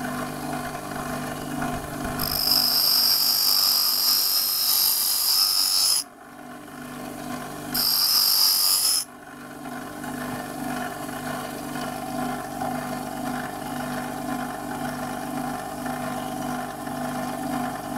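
A grinding machine's motor runs steadily while a steel twist drill bit is ground against its emery wheel. A loud, high grinding hiss lasts from about two to six seconds in and comes again briefly around eight to nine seconds, each time cutting off abruptly. After that the wheel spins on with nothing touching it.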